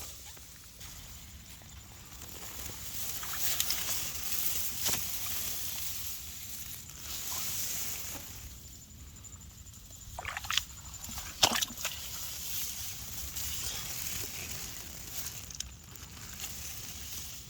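Shallow water sloshing and splashing, with a few sharper splashes a little past the middle.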